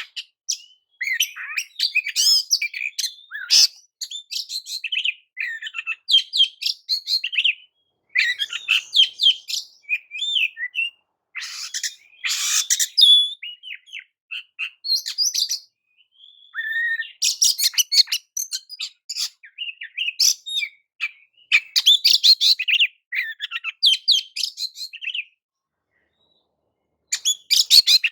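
Oriental magpie-robin (kacer) singing a rapid, varied song of whistled and chattering phrases with a few harsh, buzzy notes, pausing for about two seconds near the end.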